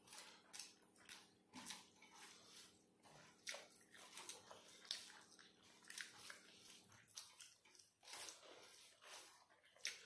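Faint, close eating sounds: chewing and lip smacks as two people eat rice and chicken curry by hand from steel plates, in irregular soft clicks.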